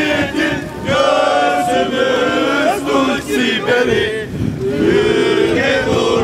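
A group of voices chanting and singing together in unison, in short phrases with brief breaks between them.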